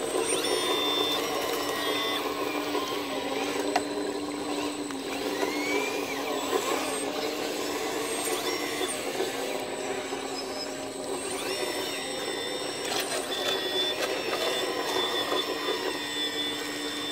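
Hidromek H4 500 RC hydraulic excavator working: its electric pump whines steadily, and higher whining tones switch on and off as the boom, arm and bucket move. There is one sharp click about four seconds in.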